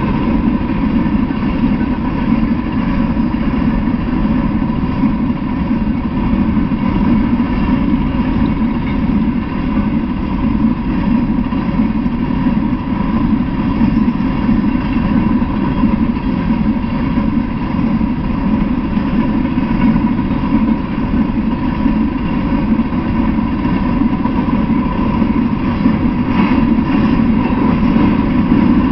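Freight train of open-top hopper cars rolling past: a steady, unbroken noise of steel wheels on rail, with a faint steady high ring over it.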